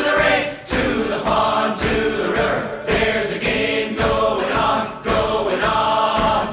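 Folk song intro: voices singing a wordless chorus together, with a beat about once a second.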